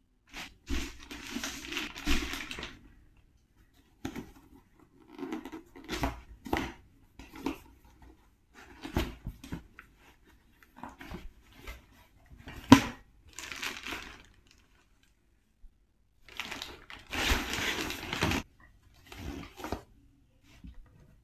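Packaging being handled and unwrapped: crinkling and rustling in stop-start bursts, two of them longer, with a sharp knock roughly two-thirds of the way through.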